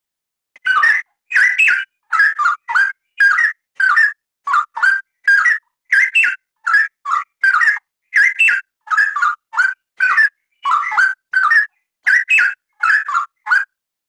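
Straw-headed bulbul (cucak rawa) in full song: a fast string of short, pitch-sweeping phrases, about two a second, with barely a pause between them. The song starts about half a second in.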